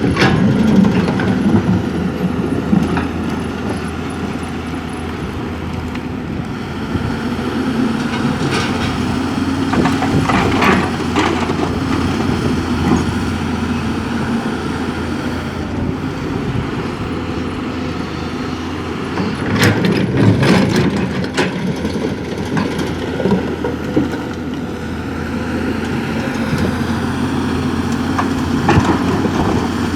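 Heavy diesel engines of an excavator and truck running steadily, with a few bursts of clatter as the excavator dumps loads of material into the truck bed.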